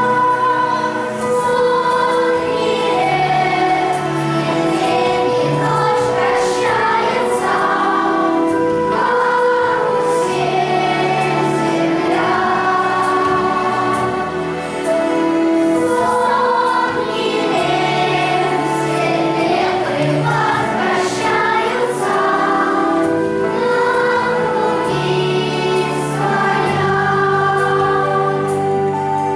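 A choir singing a song in chorus over a steady instrumental accompaniment.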